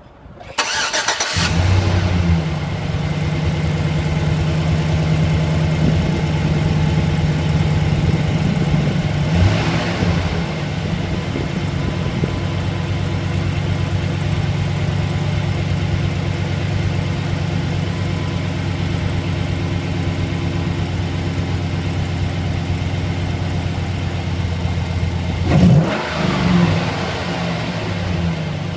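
2008 Chevrolet Silverado engine cranking and catching about a second in, then running at a steady idle with a fast ticking. It is revved briefly near ten seconds and twice near the end. The owner cannot tell whether the tick is an exhaust manifold leak or an engine knock.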